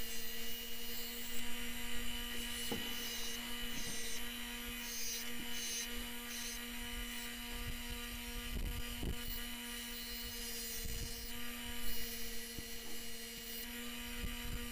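Electric bench grinder running with a steady hum. Steel is ground against its wheel at the start.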